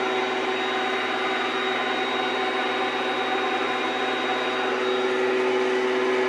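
Shop vac running steadily with a constant whine over a rushing hiss, sucking engine oil out through a hose.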